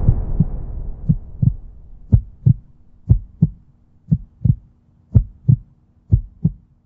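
Heartbeat sound effect: paired low thumps, lub-dub, repeating about once a second, as a loud swell fades out at the start.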